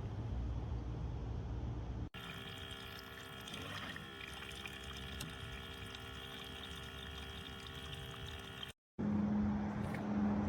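Water running from a camp kitchen's electric tap, over a steady whine from the tap's pump.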